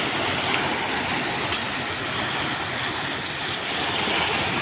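Choppy sea water sloshing and splashing around moored outrigger fishing boats and a stone seawall: a steady rushing wash of waves.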